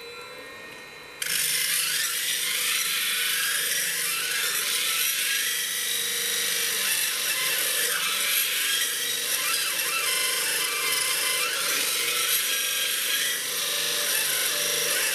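Flat lap grinding machine running at full speed with a water-fed diamond grinding pad. At first only its motor hums; about a second in a stone is pressed onto the spinning wet pad and a loud, steady grinding noise sets in and continues.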